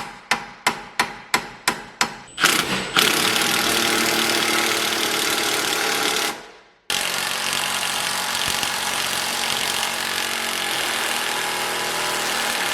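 A hammer striking about three times a second, driving a freezer-chilled bushing into place. After about two seconds a steady, dense tool noise takes over; it cuts out briefly about six seconds in, then starts again.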